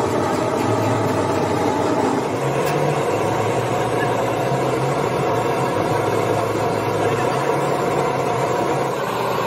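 A steady motor or engine running, its low pitch shifting slightly.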